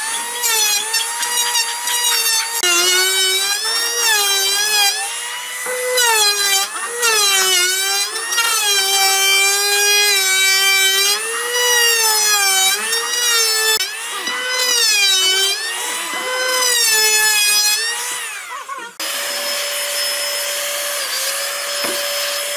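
Electric hand planer running and cutting pine, its whine sagging in pitch each time the blades bite on a pass and rising again as the load comes off. About 19 seconds in, this gives way to a steady, even whine of a power tool running without load.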